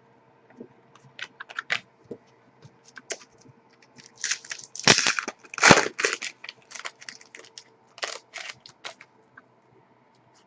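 Wrapper of an Upper Deck SPX hockey card pack crinkling and tearing open, with the cards clicking as they are handled: an irregular string of sharp crinkles and clicks, loudest and densest about five to six seconds in.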